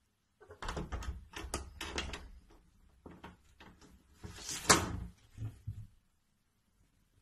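A cat jumping at an interior door and hanging from its lever handle: a run of knocks and scrapes against the door and handle, then a sharp latch click about four and a half seconds in as the handle is pulled down and the door comes open, followed by a few softer knocks.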